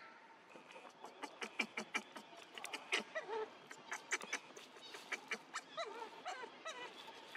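Young macaques giving short squeaky calls, a few around the middle and again near the end, over a scatter of sharp clicks and ticks.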